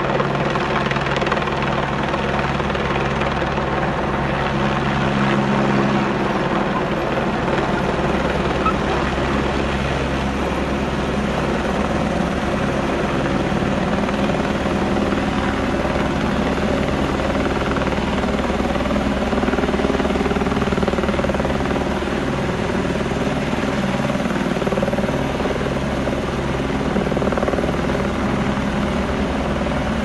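Single-rotor helicopter hovering low with a load slung beneath it on a long line, its rotor chopping rapidly and steadily over the turbine's whine.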